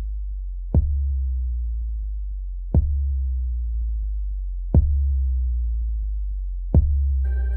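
Electronic music intro: a deep synthesized bass pulse hit every two seconds, each with a sharp attack and a long low tone that slowly fades. Sustained synth chords come in near the end.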